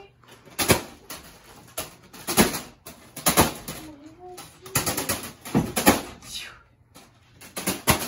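Spinning ceiling fan blades striking a foil balloon over and over: sharp slaps roughly once a second, unevenly spaced. The balloon does not pop.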